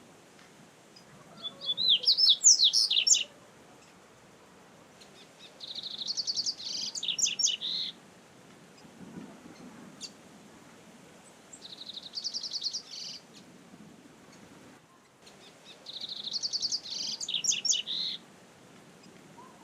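Double-collared seedeater (coleiro) singing: four bursts of song, each a quick, high-pitched series of chirping notes lasting about two seconds, with pauses of a few seconds between them.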